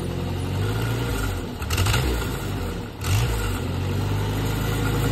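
1961 Allis-Chalmers D15 Series II tractor's gasoline four-cylinder engine running just after starting, its speed shifting up and down a couple of times.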